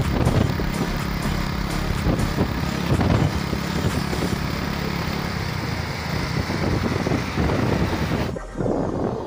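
Small motorcycle engine running steadily at road speed, with road and wind noise on the microphone. The engine sound stops abruptly near the end.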